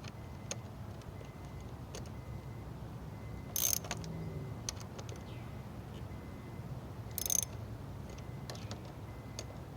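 Hand ratchet with a 10 mm socket turning the wire-clamp screws of a car battery terminal connector. Faint scattered clicks and two short bursts of ratchet clicking, about three and a half seconds apart.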